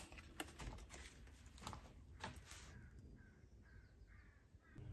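Near silence with a few faint clicks from handling in the first couple of seconds, then a few faint short chirps near the end.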